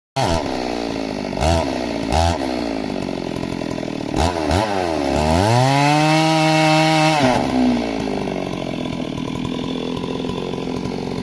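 Stihl MS 382 two-stroke chainsaw running, revved up briefly several times, then held at high revs for about two seconds near the middle before dropping back to lower revs.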